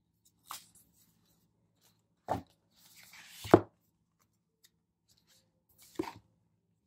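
Paper stickers and sticker sheets being handled on a planner page: a few short taps on the desk, and a brief rustle that ends in the loudest, sharpest tap about three and a half seconds in.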